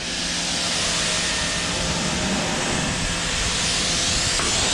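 Bigboi Washr Flo pressure washer spraying, its high-pressure water jet hissing steadily against a car's paint with a steady low hum from the pump motor underneath. The jet is strong enough to strip bird droppings off the paint.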